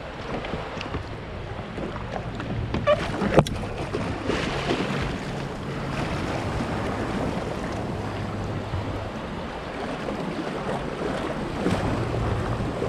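Shallow seawater sloshing and splashing around a wading person's legs and a plastic kayak hull, with wind buffeting the microphone. A sharp knock on the hull about three and a half seconds in.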